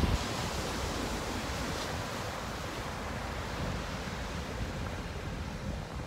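Ocean surf washing onto a sandy beach: a steady, even hiss of breaking waves.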